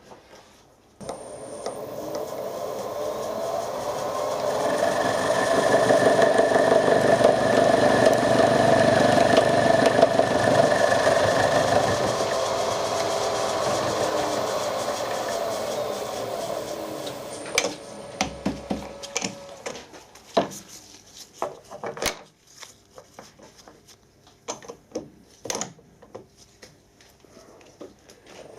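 A workshop machine tool's motor switches on, runs steadily with a whine for about eleven seconds, then spins down with its pitch falling. After that come scattered metallic clicks and knocks from parts and tools being handled.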